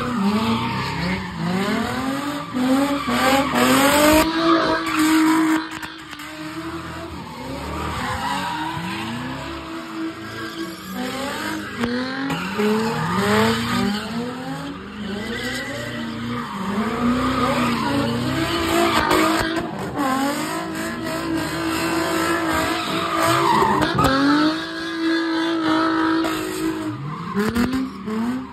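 Car engine revving hard at a street sideshow stunt, its pitch climbing and holding high several times, with tires squealing and skidding as the car spins.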